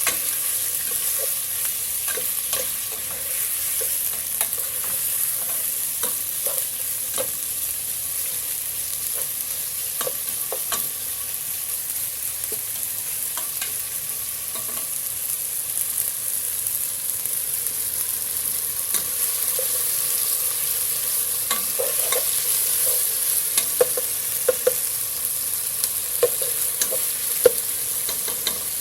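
Sliced chicken sizzling as it is sautéed in a hot pan, with a utensil stirring it and clicking and scraping against the pan. The taps come more often in the last few seconds.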